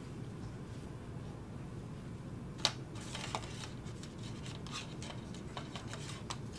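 Gloved hands handling a betadine swab over a catheterisation trainer: small clicks and rustles, the sharpest click about two and a half seconds in, over a steady low room hum.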